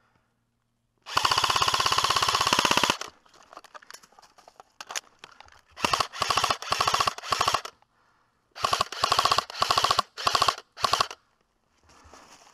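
Airsoft rifle firing on full auto: one long burst of about two seconds, then nine short bursts in two quick strings.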